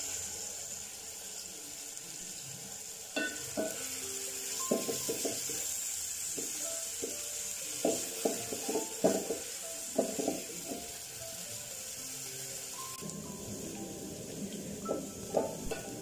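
Chopped red onions sizzling steadily as they fry in oil in an aluminium pot, with a wooden spoon knocking and scraping against the pot as they are stirred, the knocks clustering a few seconds in.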